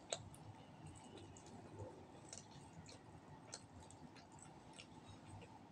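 Quiet eating sounds: scattered small clicks and smacks as roast duck is pulled apart by hand and chewed, the sharpest click just after the start.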